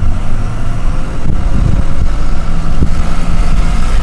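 Car driving along a snowy road: a steady low rumble of engine and tyres.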